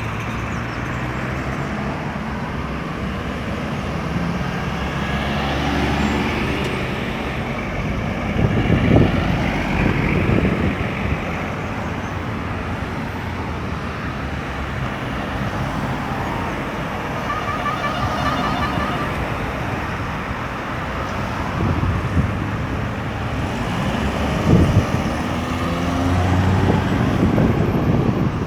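Steady road traffic at a busy roundabout: cars, trucks and buses running and passing, with louder vehicles going by about nine seconds in and again near the end.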